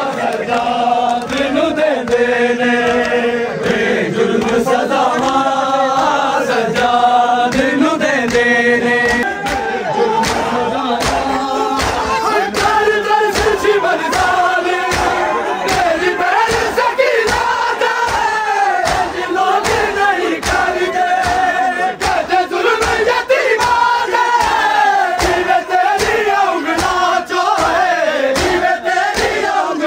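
Men's voices chanting a noha, a Shia mourning lament, with a steady beat of sharp slaps of matam chest-beating that becomes clear about nine seconds in.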